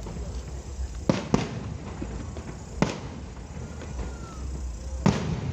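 Fireworks bursting in the sky: two sharp bangs close together about a second in, another near three seconds, and one near the end, over a steady low rumble.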